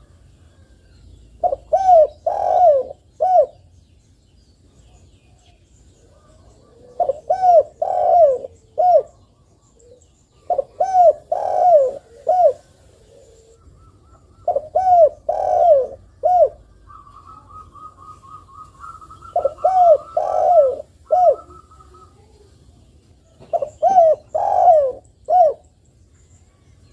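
Spotted dove (tekukur) cooing: six phrases of three to five low, arching coo notes, one roughly every four seconds.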